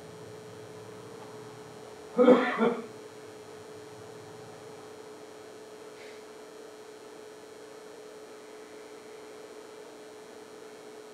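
A steady electrical hum, broken about two seconds in by a person clearing their throat in two quick bursts.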